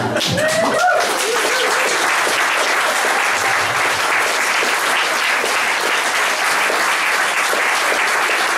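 Audience applauding steadily, with a few voices heard briefly at the start.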